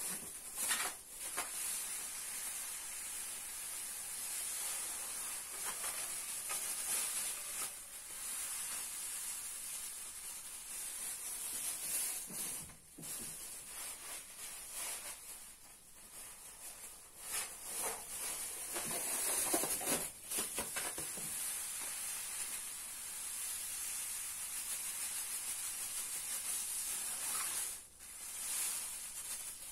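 Granulated sugar poured in a steady stream into a pot of cherry plum puree: a continuous hiss with a few brief breaks.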